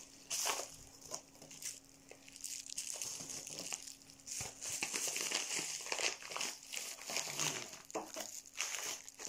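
Packing material rustling and crinkling as a cardboard box is unpacked by hand, in irregular bursts of crackles and scrapes.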